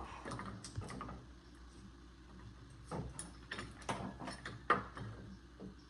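Scattered light clicks and knocks, gathered mostly in the middle of the stretch, as metal bar clamps are handled and fitted into notches cut in a wooden board.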